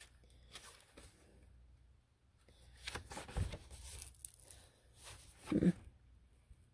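Paper pages of a hardcover book rustling as it is handled, its pages turned and the book opened wide. There is a thump about five and a half seconds in.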